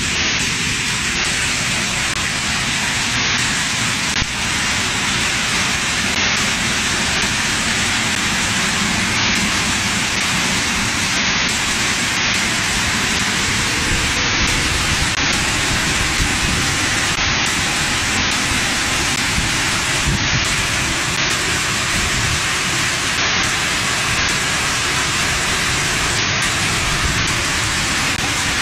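Muddy floodwater rushing down a street in a heavy rain and hailstorm, making a steady, loud roar of water.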